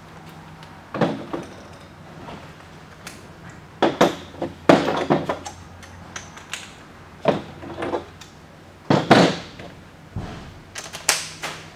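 Clanks and knocks of hand tools being handled, about six separate clatters a second or two apart, as sockets and a ratchet are sorted out for the strut bolts.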